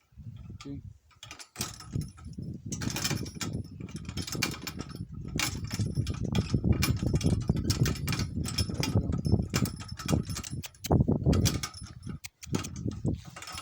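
Metal jangling and clicking of handled gear, with knocking and rubbing handling noise close to the microphone; the rattling starts about a second and a half in and runs on with only short breaks.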